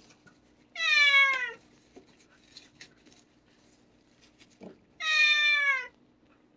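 Domestic cat meowing twice, each meow just under a second long and falling in pitch, the second one about four seconds after the first.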